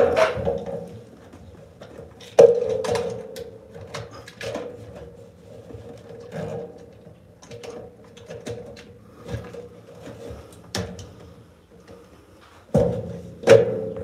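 Scattered knocks and clicks of hands working plastic parts at a GE washer's lid lock while its wire connector is being plugged in. The loudest knocks come about two and a half seconds in and near the end, over a faint steady hum.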